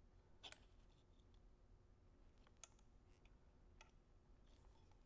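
Near silence, with three faint clicks as a camera is shifted sideways by hand on a gimbal's slotted base plate to balance its roll.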